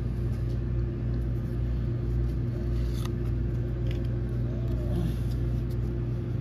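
A steady low hum, with a few faint clicks and slides of a stack of Pokémon trading cards being handled.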